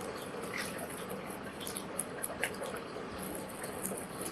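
Printed etching paper being cut by hand: scattered small clicks and rustles over a steady background hiss.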